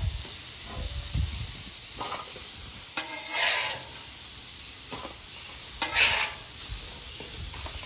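Steak fries sizzling in oil on a Camp Chef Gridiron griddle, over a steady hiss, while a metal spatula scrapes across the griddle top several times to push and turn them.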